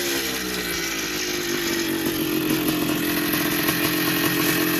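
1982 Yamaha YZ490's single-cylinder two-stroke engine dropping back from a throttle blip in the first second, then idling steadily. The fuel has been turned off, so it is running on what is left in the carburettor.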